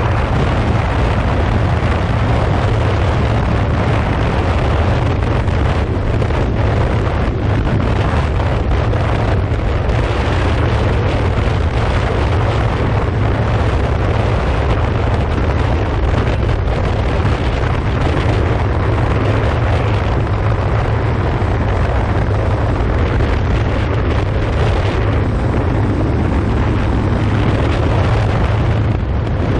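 Wind rushing over the microphone of a 2015 Yamaha FZ6R motorcycle on the move, with its inline-four engine running underneath. The noise stays steady, as at a constant cruising speed.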